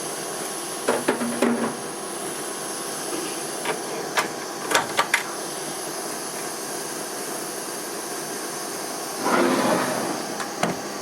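A few sharp metallic clicks and knocks, then a short scraping rattle near the end, as the cutter and tool holder are changed by hand on an Emco F1 CNC mill; a steady hiss runs under it.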